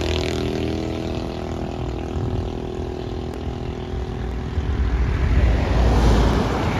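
Hino bus diesel engine running steadily, its hum slowly fading. About two-thirds of the way in, a louder low rumble builds up.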